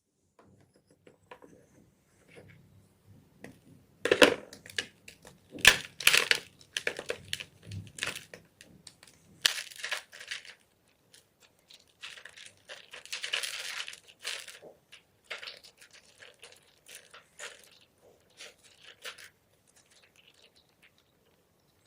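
Gym chalk being crushed: irregular crunching and crackling, loudest about four to six seconds in, with a longer run of crunching later.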